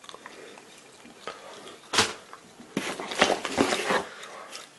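Small wooden blocks for knife handles knocking and clattering against each other in a cardboard box as they are handled, with the cardboard rustling. One sharp knock comes about two seconds in, then a run of clicks and rustles for about a second.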